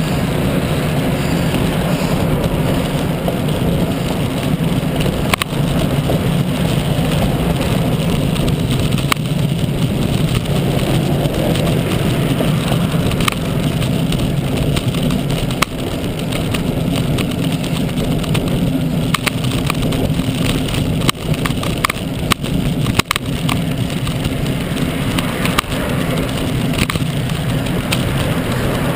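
Steady wind and road rush on the microphone of an action camera riding on a moving road bicycle, with scattered sharp knocks from bumps in the road.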